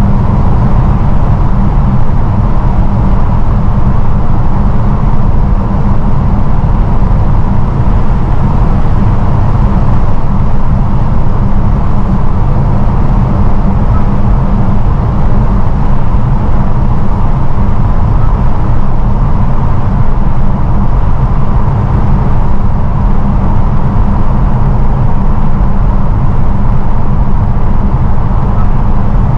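Steady wind and tyre-on-road noise from a 2022 Honda HR-V e:HEV hybrid cruising through a tunnel on Goodyear UltraGrip Ice 2 winter tyres. The noise is loud and even, heaviest in the low rumble.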